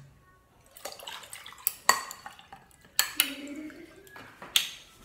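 Dishes and cutlery being handled and set down: a few sharp clinks and knocks about two, three and four and a half seconds in, with quieter handling noise between them.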